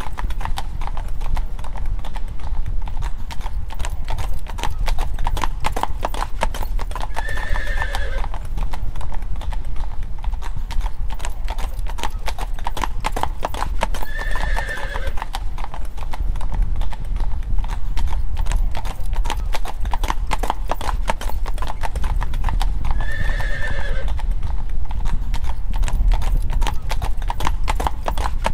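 Hooves of two horses clip-clopping rapidly on a road as they pull a carriage at speed, over a steady low rumble. A short high whinny cuts in three times, several seconds apart.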